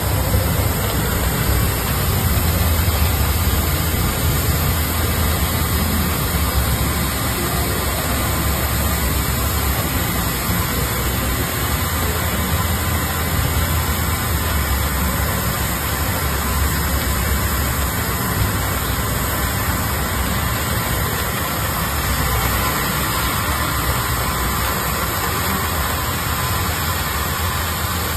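Fiber laser cutting machine cutting a steel beam: a steady hiss over a low hum, with no strikes or rhythm.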